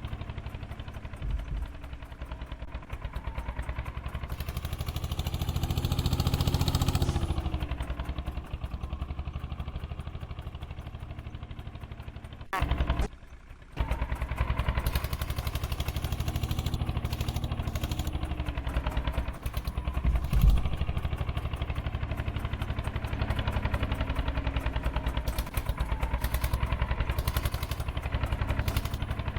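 Heavy diesel engine running steadily with a clattering beat, revving up a few seconds in and easing back. A short break about thirteen seconds in, and a single thump about twenty seconds in.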